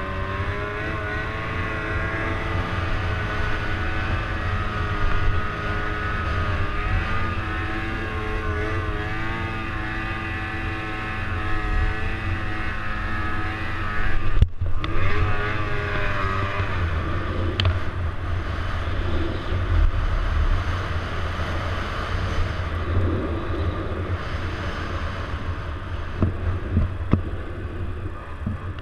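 Snowmobile engine running under throttle through snow, its pitch rising and falling with engine speed. The sound drops out for a split second about halfway through.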